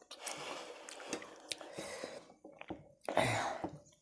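Fingers mixing and squeezing rice and fish curry on a plate, giving wet squishing with small clicks, with a louder burst about three seconds in.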